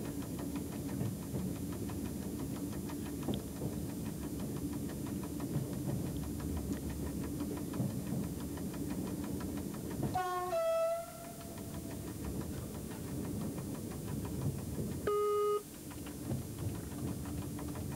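Train running, heard from the driver's cab as a steady rumble. About ten seconds in the train's horn sounds one two-note blast, a short higher note falling to a longer lower one. About five seconds later there is a short steady tone.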